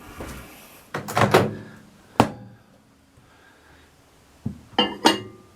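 Microwave oven door being handled: a few knocks about a second in, a sharp latch click a little after two seconds, then a short cluster of clicks near the end.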